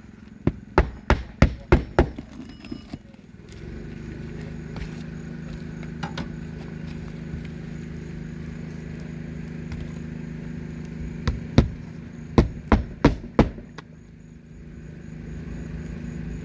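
Hammer driving roofing nails through a new asphalt shingle: a quick run of sharp strikes at about three a second, then a second run near the end. Between them a steady low hum runs underneath.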